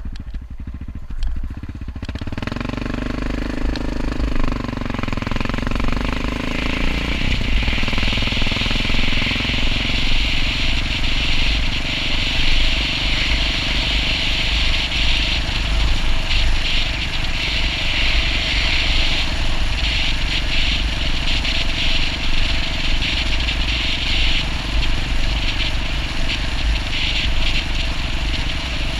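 Yamaha XT660R's single-cylinder four-stroke engine pulling away, its note rising and bending over the first several seconds, then running steadily as the bike rides a gravel track, with a loud rushing noise of wind and gravel over the engine from about seven seconds in.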